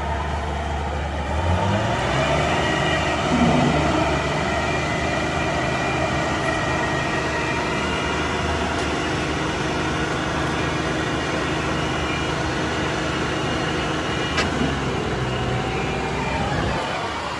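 Heavy farm machinery diesel engines running, one revving up about a second and a half in and holding at higher speed. A single sharp click near the end.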